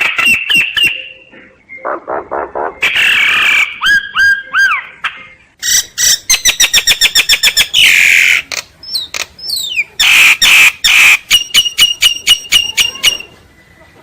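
A sáo nghệ myna singing a loud, varied song made of rapid rattling click trains, harsh squawks and a few rising, looping whistles, with a short lull about a second and a half in. It falls quiet shortly before the end.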